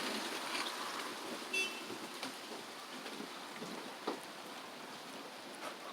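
Steady rain falling, an even hiss with scattered light drop ticks. A brief high squeak about one and a half seconds in.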